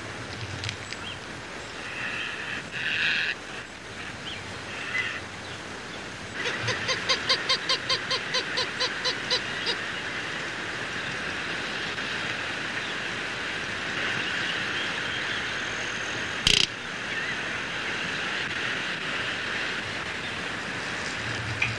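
Roadrunner calling over a steady background hiss, with a few short calls early on and then a run of about fourteen quick, evenly spaced notes. A single sharp click comes near the end.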